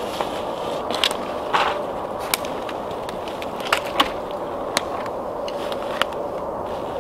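Tinder bundle and dry twig kindling catching fire, with sharp crackles and pops every second or so over a steady hiss.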